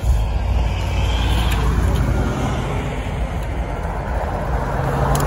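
A nearby engine-driven machine starts up abruptly and runs with a steady low rumble.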